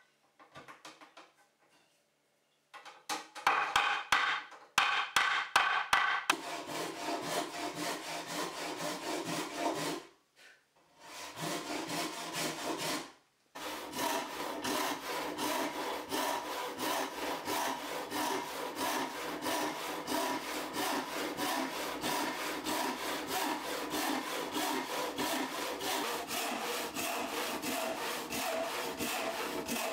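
Handsaw cutting a wooden board with steady back-and-forth strokes. A few sharper knocks come around four to six seconds in, and the sawing breaks off briefly about ten and thirteen seconds in.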